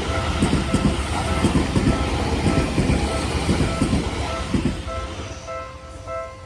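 Seibu 40000 series electric train passing over a level crossing, its wheels knocking rhythmically over the rail joints. The train noise dies away about four and a half seconds in. A level-crossing warning bell keeps ringing in repeated dings, clearer once the train has gone.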